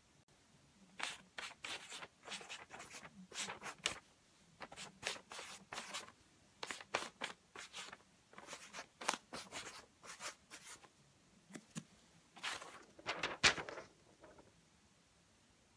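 Irregular rustling and scraping of clothing and paper being handled: a string of short scrapes with brief pauses, the loudest cluster near the end.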